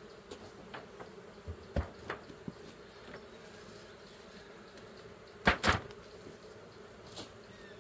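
Honeybees buzzing steadily around open hives, with a few light knocks of wooden hive parts being handled. The loudest, a double knock about five and a half seconds in, comes as a brick is set on the hive's outer cover.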